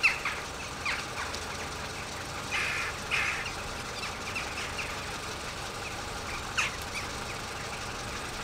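Short, high squeaky animal calls, a handful at irregular intervals, some dropping in pitch, over a steady hiss.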